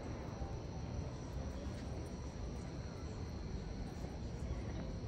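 Insects trilling steadily in the night, over a low rumble.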